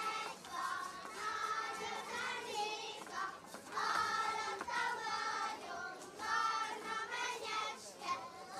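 A group of children singing a Hungarian folk song together, phrase after phrase.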